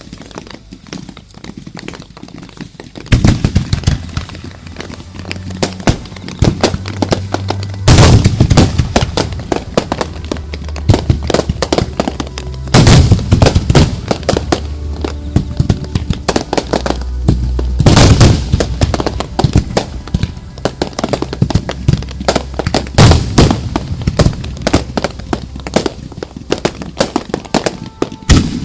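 Fireworks launching and bursting close by in dense volleys of shots and crackle. A few seconds in the barrage starts, and after that heavy reports come about every five seconds. Show music plays underneath.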